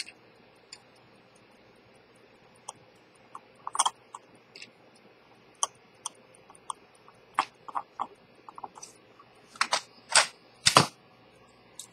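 Small, irregular clicks and taps of an enamel watch dial being handled and pressed into place on an Elgin pocket watch movement in its movement holder, with a few louder knocks near the end.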